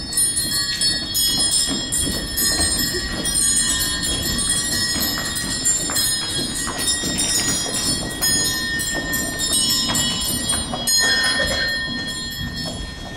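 Music with high, bell-like chiming notes.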